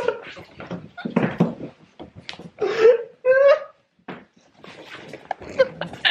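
People laughing and letting out short yelps while wrestling playfully, with bumps and rustling from the scuffle. Two louder pitched cries come about three seconds in.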